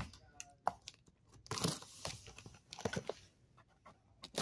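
A cardboard shipping box being handled: a sharp knock at the start, then a few short rasping scrapes and rustles of cardboard, and another knock at the end.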